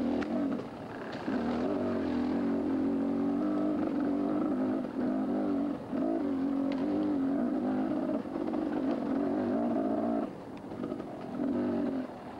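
Small mini bike engine running hard under load, its pitch wavering as the throttle is worked. Revs drop briefly a few times, longest about ten seconds in, as the throttle is eased off.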